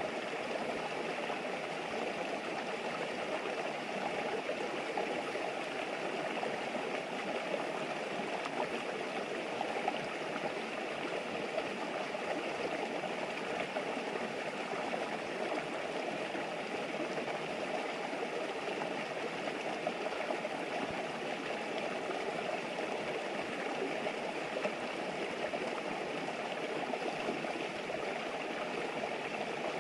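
River water babbling and flowing steadily.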